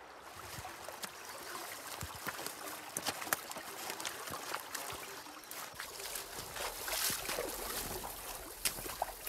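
Boots wading and splashing through a shallow rocky stream, with irregular splashes and knocks of footsteps over the stream's running water.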